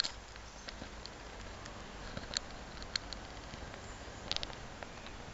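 Footsteps on brick paving heard as scattered light ticks and taps, with a quick run of ticks about four seconds in, over a faint steady outdoor background.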